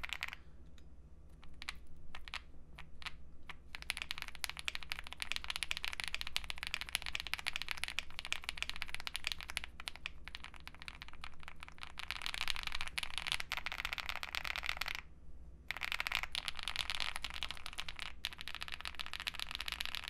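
Fast typing on a Wuque Mammoth75 mechanical keyboard with KTT Kang switches, a PE film sheet and GMK keycaps: a dense stream of keystroke clacks. The keystrokes are sparse for the first few seconds, then run on continuously, with a short pause about fifteen seconds in.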